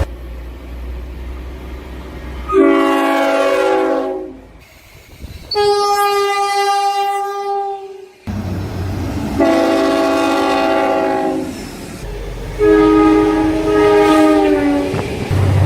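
Train horns from several passing trains, cut one after another: about four blasts, most of them multi-note chord horns. In some blasts the pitch drops as the train goes by (Doppler effect). A low rumble of the train sits beneath, and another horn starts right at the end.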